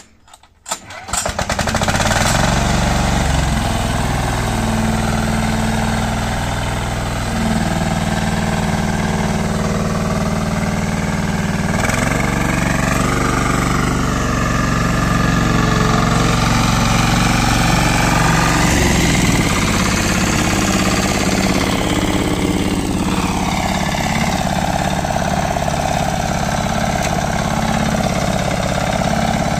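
Two-wheel tractor (patpat) engine being started, catching about a second in after a few short knocks. It then runs steadily while pulling a trailer loaded with firewood, its pitch shifting several times with the throttle.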